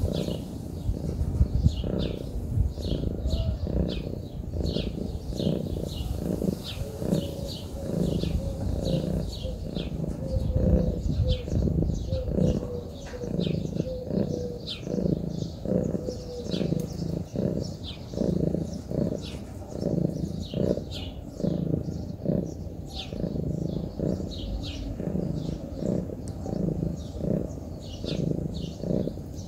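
Munchkin cat close to the microphone making a low, rhythmic pulsing sound of about two beats a second.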